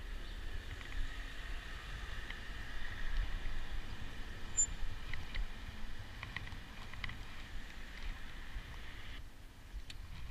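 Wind rumble on the microphone and rolling noise from a bicycle ride, with a few light clicks and rattles. A higher hiss drops out near the end.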